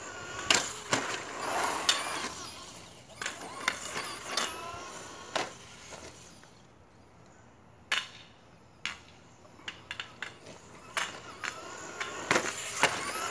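Traxxas Slash radio-controlled short-course truck driving hard: its motor whines up and down in pitch, with a series of sharp knocks and clatters as it lands jumps and bounces over the curb.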